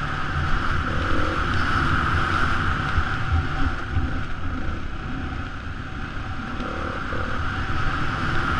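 Beta 430 RR-S four-stroke single-cylinder dirt bike engine running steadily while the bike is ridden along a trail, heard from a helmet-mounted camera. The engine eases off a little in the middle and picks up again near the end.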